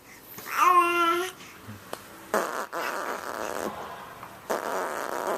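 A young child's short high-pitched vocal sound, then two long raspberries blown through the lips, each buzzing for over a second.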